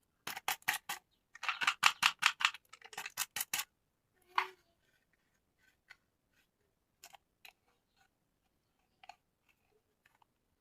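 Quick runs of sharp, crisp clicks and snips from handling a plastic toy and its packaging, followed by one louder tap and then a few scattered light ticks.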